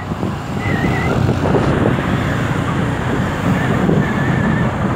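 A motorbike riding steadily along a road: a continuous rush of engine, tyre and wind noise with wind buffeting the microphone.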